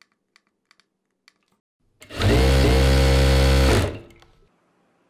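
Jack 9100BA industrial sewing machine running at its maximum speed setting of 40: a few faint clicks, then about two seconds in the machine starts, runs steadily at full speed for under two seconds, and winds down to a stop.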